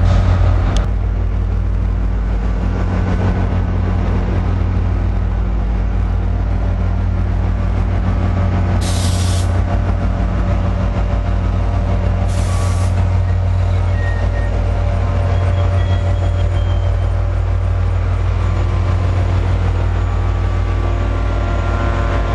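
Diesel commuter train standing with its locomotive engine running in a steady, even hum. Two short sharp hisses of released brake air come about nine and twelve and a half seconds in.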